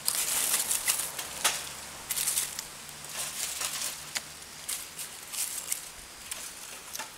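Irregular rustling and crunching, in short bursts a few times a second.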